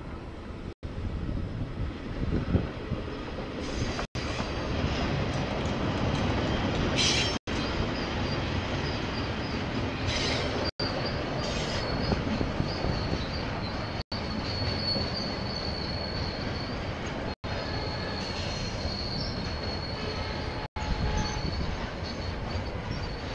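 KiwiRail train rolling past with a steady rumble, its steel wheels squealing on the rails in a high thin whine that comes and goes at first and then holds through the second half. The recording drops out for an instant about every three seconds.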